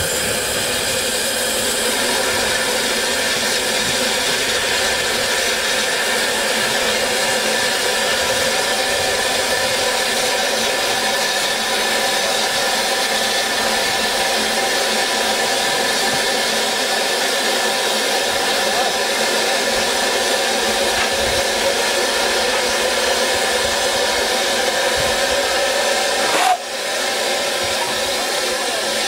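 Narrow-gauge steam locomotive Palmerston (built 1864) standing and blowing off steam in a loud, steady hiss, briefly breaking off near the end. Steam lifting like this at a stand is the sign of a boiler at full working pressure.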